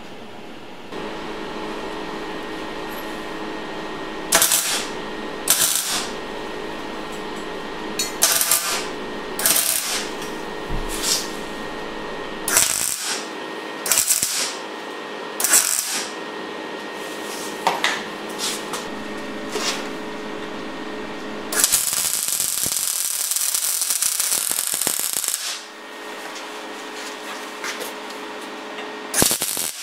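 Arc welding on steel tubing: a string of short tack-weld bursts, each under a second and about every one to two seconds, followed by a longer weld run of about four seconds, over a steady hum.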